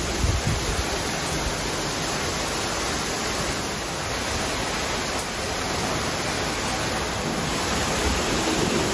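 Heavy tropical monsoon rain pouring down in a steady hiss.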